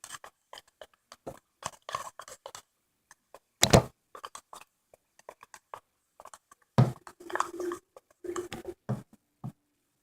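Slime being squished and worked by hand, giving a string of sticky clicks and crackles. Louder squelches come about four seconds in and again near the end.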